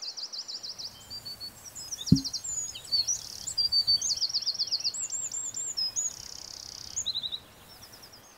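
Songbirds singing outdoors in a busy mix of varied chirps, whistles and fast trills, with one sharp knock about two seconds in.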